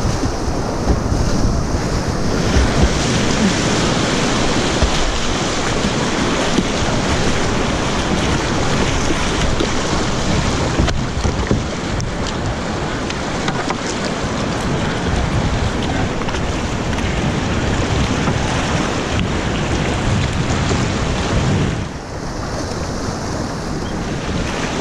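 Rushing whitewater of a river rapid around a kayak, with wind buffeting the microphone. The rush eases a little near the end.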